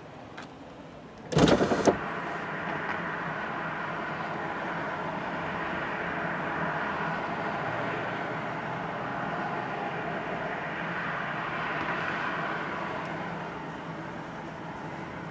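Road traffic passing on a city street, a vehicle's sound swelling and fading over several seconds, with a sudden loud clatter about a second and a half in.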